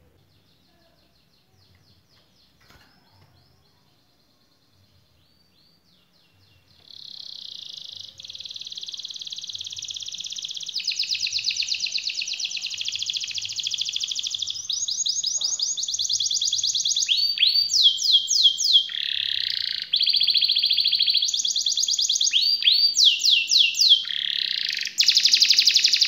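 A red canary singing: soft, faint twittering at first, then from about seven seconds a loud, unbroken song of long rapid rolls and trills. In the later part it breaks into fast rising and falling sweeps.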